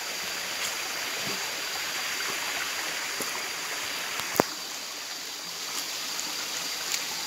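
Steady rushing noise with a faint steady high whine, broken by a few faint ticks and one sharp click a little over four seconds in.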